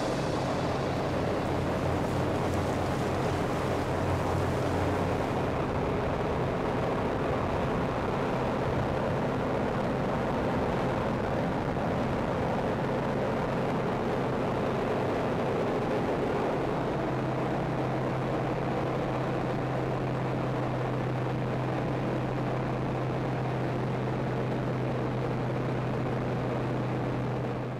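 Gaz'aile 2 light aircraft in cruise, heard from inside the cockpit: a steady drone of engine, propeller and airflow with a constant low hum.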